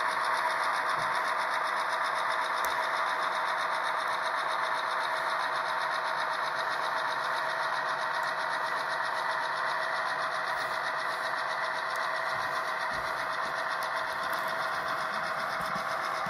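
Model grain train of hopper wagons rolling steadily along the layout's track, a continuous even running noise from the train on the rails.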